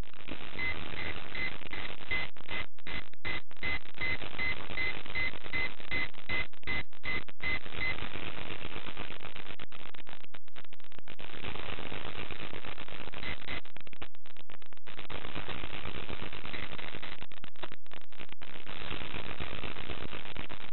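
Brushless RC speed controller sounding its throttle-calibration beeps through the motor: a run of short, evenly spaced, high beeps for about seven seconds, then a single beep a few seconds later. A loud steady hiss runs underneath.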